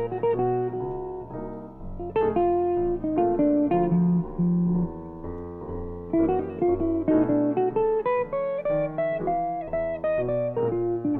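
Hollow-body archtop electric guitar playing a slow jazz solo, mixing single-note melody lines with chords.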